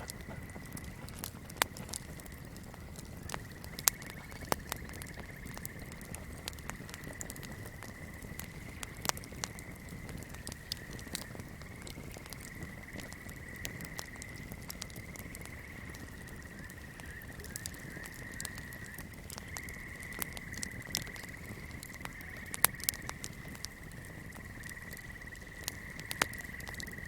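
Swamp ambience: a steady, high-pitched chorus that wavers slightly and runs on without a break, over a low rumble, with irregular sharp crackles and pops from a burning candle.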